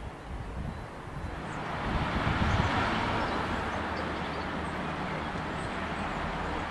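Outdoor town ambience: a steady rushing noise like passing traffic swells about two seconds in and then holds, over a low wind rumble on the microphone.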